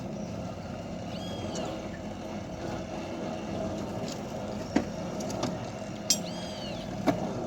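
Diesel locomotive running steadily with a low hum, with three sharp metallic knocks in the second half and a couple of short high chirps.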